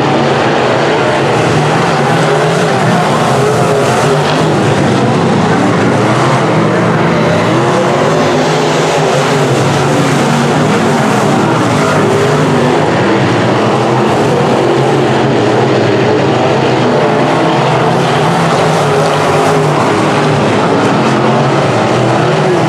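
Dirt semi-late model race cars' V8 engines running hard in a heat race, loud and continuous, the pitch rising and falling as the cars power through the turns and pass by.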